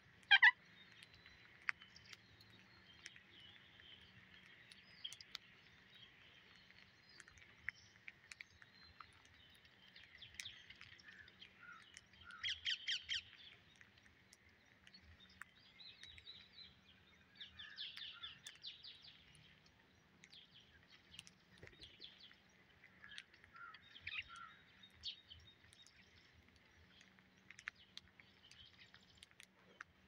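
Scattered short calls and chirps from a flock of feeding green Psittacula parakeets, with a loud call right at the start and a quick run of about six calls a little before halfway.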